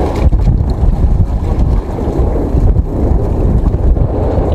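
Wind buffeting the microphone on a small boat at sea: a loud, uneven low rumble.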